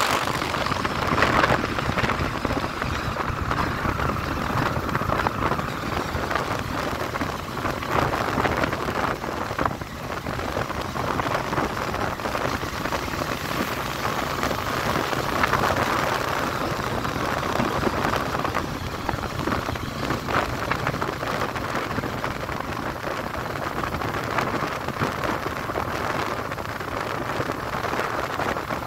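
Wind rushing over the microphone of a phone carried on a moving motorcycle: an even, gusting rush with road noise underneath.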